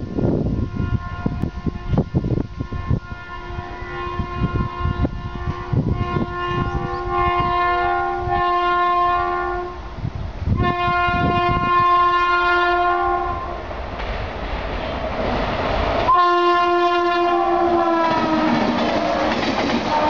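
WAP7 electric locomotive's multi-tone horn sounding three long blasts as it approaches at about 100 km/h. The last blast drops in pitch as the locomotive passes. Near the end come the rush and clatter of coaches going by at speed.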